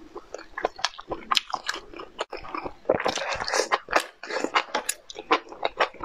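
Close-miked eating: biting and chewing a mouthful of sauce-covered food, with many short wet smacking clicks and crackles. They are busiest between about three and four seconds in.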